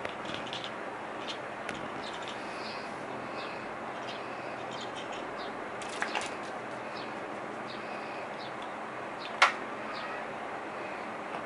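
Cat leaping at a laser dot on a wall: a couple of light knocks about six seconds in as it jumps, and one sharp knock about nine and a half seconds in, the loudest sound, as its paws strike the wall or it lands on the tile floor. Under them is a steady background hiss with faint short chirps.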